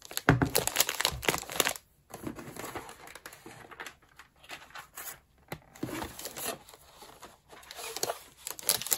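Paper and cardboard packaging crinkling and rustling as pieces are handled and pulled out of a box. It is loudest in the first couple of seconds and again near the end.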